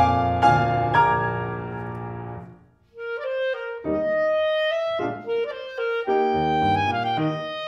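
Piano chords struck about three times in the first second, then left to fade away. After a brief pause, a clarinet takes up a melody over piano accompaniment in a classical chamber piece for clarinets and piano.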